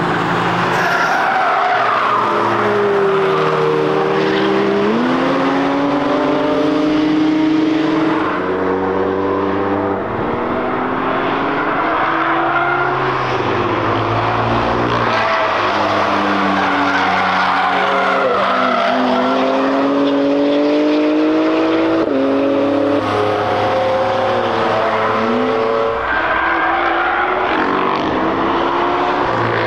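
Cars driven hard on a race track, their engines rising and falling in pitch through gear changes, with one engine overlapping the next as they pass.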